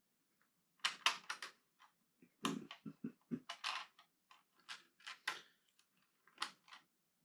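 Lego plastic pieces clicking and clattering as they are handled and pressed together: quick clusters of sharp clicks, some with a dull knock, about a second in, again around two and a half to four seconds, and near the end.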